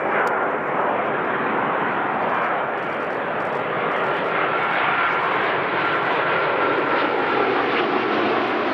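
Jet airliner's engines passing close by, a loud steady rushing noise with a thin whine on top; a lower tone falls in pitch near the end as the aircraft goes past.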